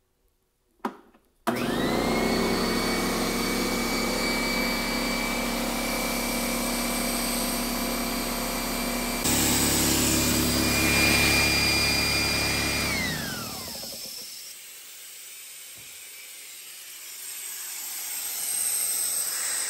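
Fortress 27-gallon oil-free air compressor switched on with a click: the motor and pump start with a quick rising whine and run steadily, breaking in with the tank drain valve open. Near the middle the whine falls away as it winds down and stops, leaving a softer hiss of air.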